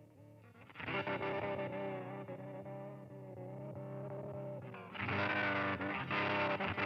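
Electric guitar chords played through a Chase Bliss Generation Loss MKII tape-emulation pedal: one chord struck about a second in and left ringing, a second, louder one about five seconds in.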